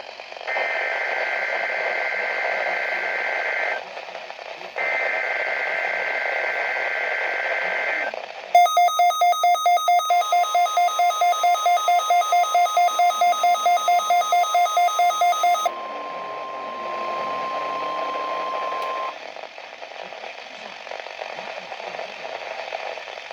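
NOAA Weather Radio test alert heard through a radio receiver. It opens with two buzzy two-tone data bursts of the SAME alert header. Then an alarm beeps rapidly, about four times a second, for some seven seconds, while the steady weather radio warning alarm tone starts. The tone runs on alone for a few seconds and cuts off, leaving radio hiss.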